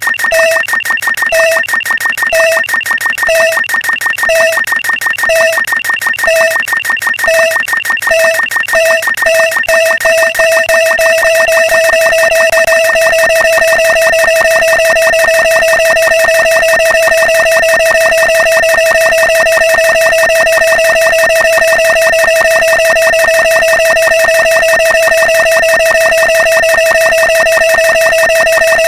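Layered electronic sound effects: a fast buzzing, rattling pulse under steady high tones, with a beep about once a second that speeds up about eight seconds in and merges into one continuous tone a few seconds later.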